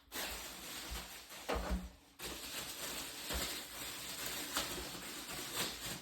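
Plastic vacuum parts and packaging being handled during assembly: a steady rustling with a few light knocks, and a short pause about two seconds in.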